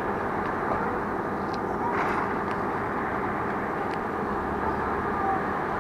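Electric commuter train standing at a platform with its doors open: a steady hum and whir from its on-board machinery, with a few faint clicks.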